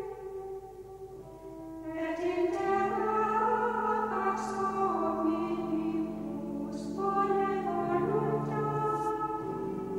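Slow choral singing with long held notes, softer at first and growing fuller about two seconds in.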